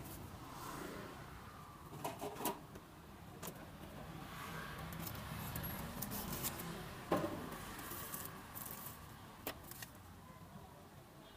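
Knife and metal utensils clicking and knocking on a wooden chopping board as a baguette is sliced open. There are several sharp knocks, the loudest about seven seconds in, over a steady hum of street traffic.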